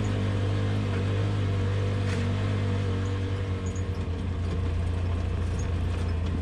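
Polaris RZR Pro XP side-by-side's engine running at a steady pitch while riding a trail, with a brief uneven wavering about halfway through.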